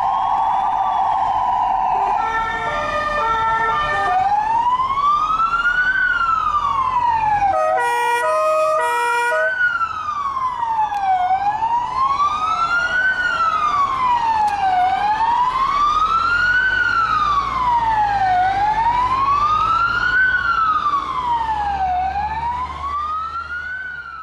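Ambulance sirens from a convoy: a slow wail rising and falling about every three and a half seconds. A steady tone sounds at the start, other stepped siren tones come in briefly about two to four seconds in, and a loud stuttering horn blast sounds about eight seconds in.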